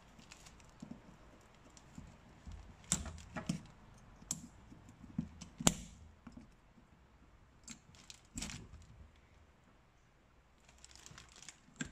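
Light metallic clicks and taps as needle-nose pliers work a wire retaining clip off the pad pins of a Tokico six-piston brake caliper, with a few sharper clicks between about three and six seconds in and another near eight and a half seconds.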